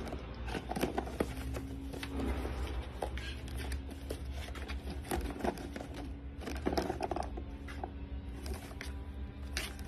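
Cardboard box scraping and rustling as a cat shifts and paws around inside it, in irregular short scrapes and knocks over a steady low hum.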